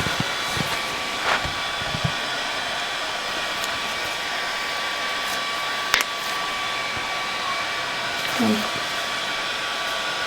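Steady whoosh of an electric cooling fan with a thin steady whine over it, a single sharp click about six seconds in, and a brief murmur of a voice near the end.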